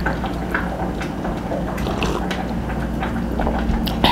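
Steady low kitchen hum with a faint hiss, and a few light clicks of a coffee mug and cutlery at the table.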